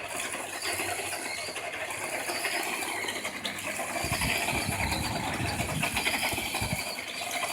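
Radio-controlled toy truck's motor and drivetrain gears running with a fast ratcheting clatter. A low rumble joins in about four seconds in and stops nearly three seconds later.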